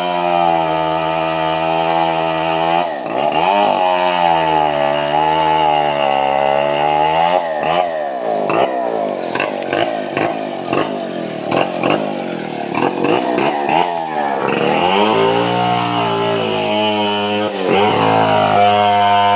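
Chainsaw engine running hard, its pitch dropping and recovering again and again as the chain bogs down in the cut through a large log, with a rougher, wavering stretch in the middle.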